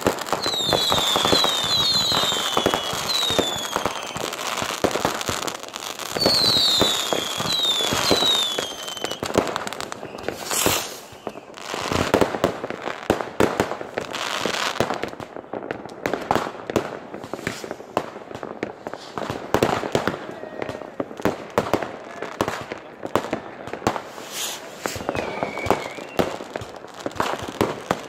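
New Year fireworks: a dense run of bangs and crackling from rockets and firecrackers, with clusters of short falling whistles in the first nine seconds or so. The bursts thin out and get quieter after about fifteen seconds.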